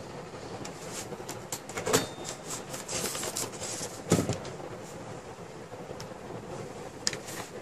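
Handling noises as computer hardware is moved about: a few light knocks, about two, four and seven seconds in, with faint rustling between them.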